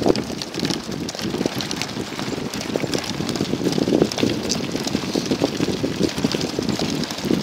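Sacco dog wagon rolling fast over a gravel track: steady crunching of the wheels on the stones, with frequent small rattling clicks from the cart.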